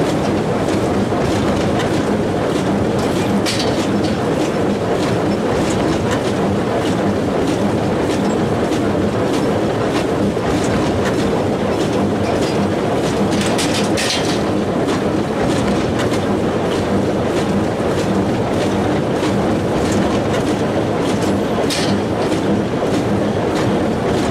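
Welger 830 small square baler at work, its mechanism running with a loud, steady clatter and rumble as bales are pushed out into the accumulator.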